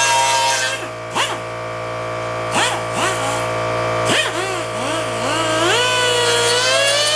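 Pneumatic pencil die grinder with a conical grinding stone, whining steadily at full speed against a painted metal plate. About a second in it is let off, then blipped several times, the pitch sweeping up and falling away each time, and near the end it spins back up to a steady high whine.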